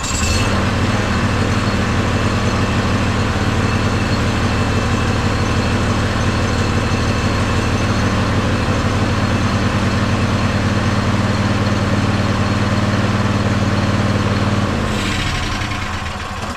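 AGCO 1616H lawn tractor engine running steadily just after starting, the starter working again with its new drive gear. About fifteen seconds in it is shut off and its note drops as it spins down to a stop.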